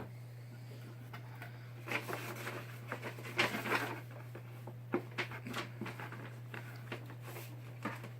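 Packaging being handled: scattered rustles, crinkles and small clicks of cardboard and plastic, over a steady low hum.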